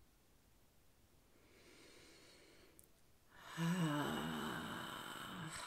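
A woman takes a slow, faint breath in, then lets out a long audible sigh about three and a half seconds in, voiced at the start and fading away.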